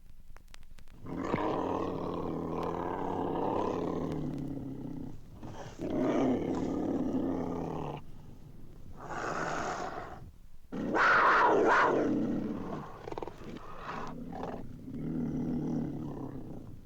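Cougar growling and snarling in a run of long, drawn-out calls, with a short hiss between them and the loudest call about eleven seconds in. This is a vintage sound-effects record recording.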